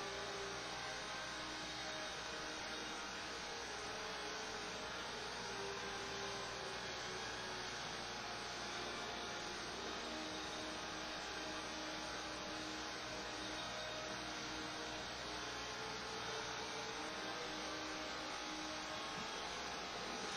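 Electric hair clippers buzzing steadily while cutting a flattop, over a constant hiss.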